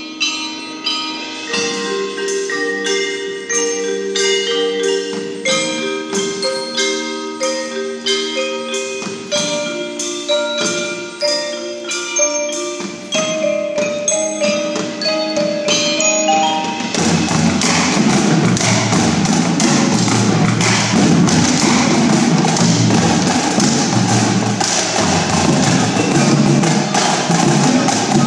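High school indoor drumline playing: the front ensemble's marimbas and chimes sound a slow melody of ringing mallet notes, then about seventeen seconds in the battery with its bass drums joins and the music becomes louder and denser.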